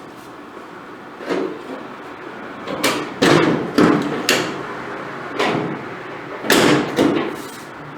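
Welder laying a series of short tack welds on a steel latch tab, about eight brief bursts at uneven intervals.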